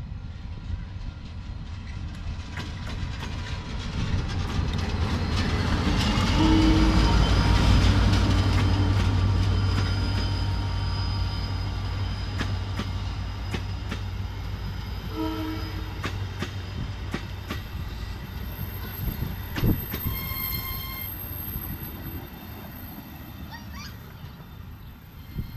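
A diesel-electric locomotive hauling passenger carriages passes close by. Its engine hum builds to a peak about seven seconds in and then fades, with wheels squealing as it passes. There are short horn sounds about halfway through and again a few seconds later.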